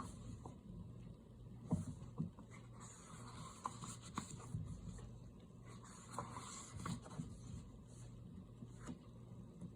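Paper pages of a coloring book being turned and handled: soft rustles with a few light taps, over a faint steady low hum.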